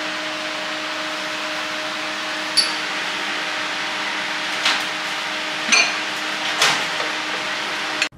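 Steady ventilation hum and hiss, with four light clinks of a metal fork and knife against a ceramic plate as a piece of seared foie gras is cut.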